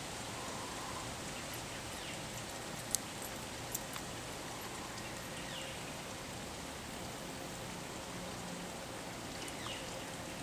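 Steady outdoor hiss of garden ambience with a few faint, short bird chirps spaced several seconds apart. A sharp click about three seconds in and a smaller one just after are the loudest sounds.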